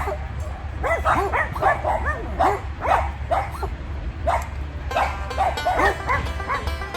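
Puppies yipping and whimpering in a rapid string of short, high, rising-and-falling cries. Background music comes in about five seconds in.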